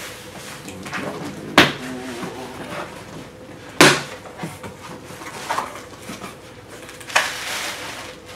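Cardboard shipping box opened by hand: rustling and scraping of the flaps, with two sharp knocks about a second and a half and four seconds in. Near the end comes a longer crinkling rustle as bubble wrap is pulled out of the box.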